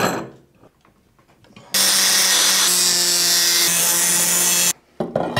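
Electric angle grinder grinding a metal rod: a loud, steady grinding hiss over a motor hum. It lasts about three seconds, starting about a second and a half in and cutting off abruptly.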